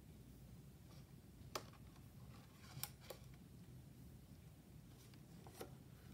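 Handling of a hand-bound book's handmade paper pages as a page is turned: a few brief, faint clicks and crinkles over quiet room tone.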